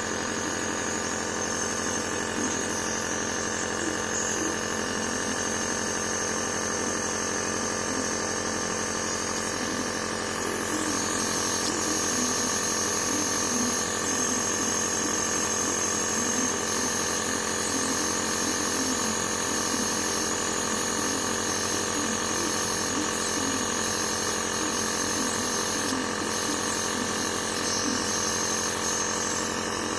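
Compressor nebulizer running steadily for a dog's cough treatment: an even electric hum with a thin high whine and hiss, growing slightly louder about ten seconds in.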